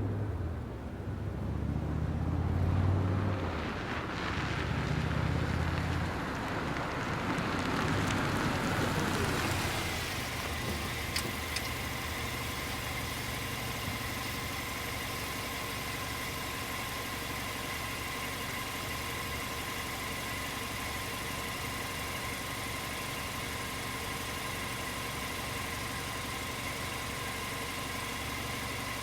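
A car drives past, its engine and tyre noise swelling and then dropping in pitch as it goes by about nine seconds in. After that, a steady hum of even tones holds at a constant level.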